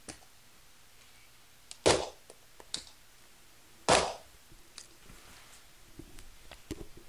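A screwdriver struck hard against the face of a loose laptop LCD panel twice, two sharp cracks about two seconds apart, with a few faint clicks near the end.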